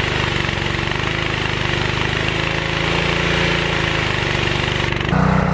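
Gas-engine DeWalt 3025 pressure washer (3,000 psi, 2.5 gpm pump) running steadily with the hiss of its high-pressure spray, working again after the no-pressure fix. The spray hiss cuts off near the end while the engine keeps running.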